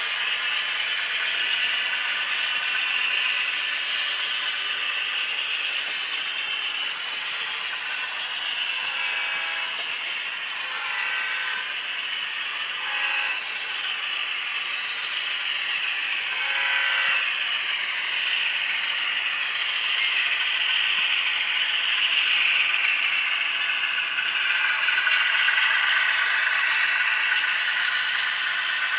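HO-scale Atlas Alco RS-11 model diesel running with a train of cars: a steady clatter and rattle of wheels and gears on the track, over the diesel sound played by its TCS WOW sound decoder. A few short horn-like tones sound in the middle.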